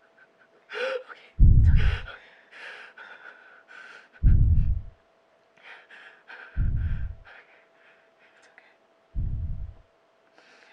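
Four deep booming thuds from overhead, evenly spaced about two and a half seconds apart, each dying away over about half a second. Between them come shaky breathing and gasps.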